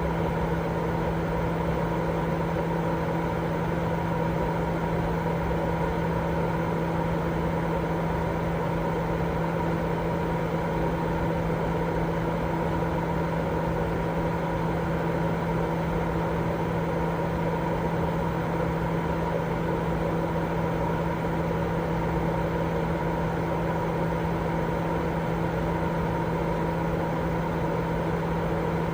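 Continuous baby-sleep white noise: an even, unchanging rush of noise, heavier in the low and middle range, with a steady low hum and a few constant higher tones running through it like a machine running.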